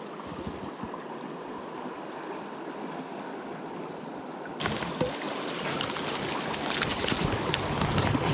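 Stream water flowing steadily. A little past halfway the sound steps up louder, and a few light clicks follow.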